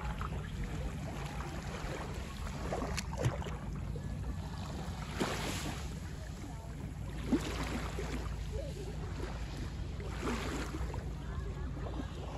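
Small waves lapping softly on a sandy lakeshore in gentle washes every two to three seconds, over a steady low rumble.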